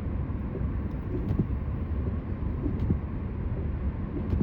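Steady low rumble of a car driving through snow, tyre and engine noise heard from inside the cabin.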